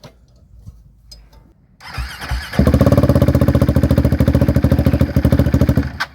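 Motorcycle engine being started: a couple of short cranking bursts, then it catches and runs with an even, rapid pulse, cutting off suddenly near the end.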